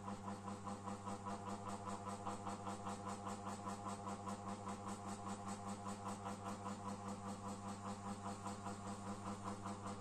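GMC FC-06-600 600 mm mini ceiling fan running: a steady motor hum with an even pulsing about three times a second. One of its blades is bent, which makes the fan noisy and wobbly.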